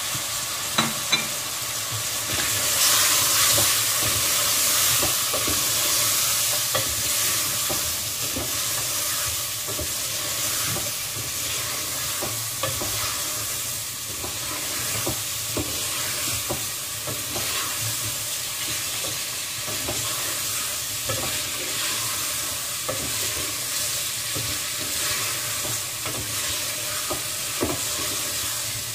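Chicken, yogurt and spice masala sizzling as it is fried in an aluminium pot, stirred with a long-handled spoon that scrapes and knocks against the pot. This is the bhuna stage, frying the masala. The sizzle is a steady hiss, loudest a few seconds in, with scattered clicks from the spoon.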